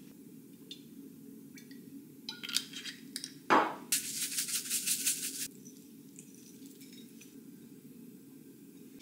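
Hand spice grinder twisted over a plate of toast, grinding chilli flakes: a fast run of even gritty crunching strokes for about a second and a half that stops suddenly. It follows a few faint clicks and a sharp knock just before.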